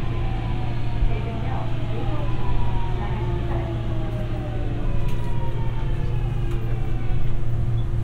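Busan Metro 2000 series subway car heard from inside the car: the traction motors' whine falls steadily in pitch over a low running rumble as the train slows.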